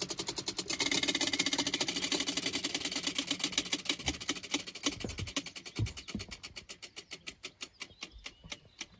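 Three tabletop prize wheels spinning, their pointers clicking rapidly against the pegs. The clicks slow and thin out over several seconds as the wheels coast to a stop.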